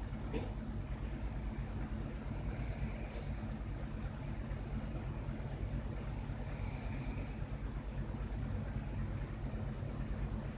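A person snoring: a steady low rumble, with a hissing breath sound coming back about every four seconds.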